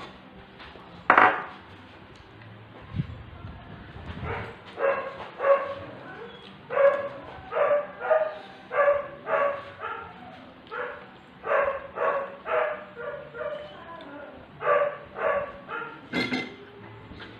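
A dog barking over and over in runs of several short barks, about two a second. There is a sharp knock about a second in and another near the end.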